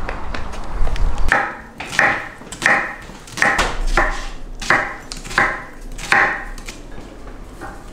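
Knife chopping an onion on a wooden cutting board: about eight evenly spaced strokes, roughly one every two-thirds of a second, starting about a second in.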